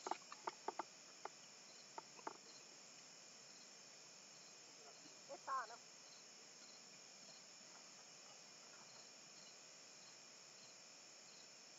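Faint insect chorus: a steady high buzz with a soft chirp repeating every half second or so. A few light ticks come in the first couple of seconds, and one short rising call about five and a half seconds in.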